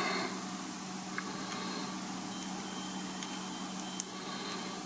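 Faint clicks of steel tweezers handling a small watch part, the sharpest about four seconds in, over a steady low hum and room hiss.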